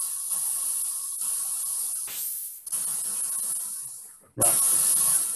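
Korg analogue synthesizer's pink noise gated through its filter in repeated hissing bursts, each fading away, imitating the chuff of a steam engine. The bursts come at uneven gaps as the patch is set up to re-trigger itself, with a brief, sharper hiss about two seconds in.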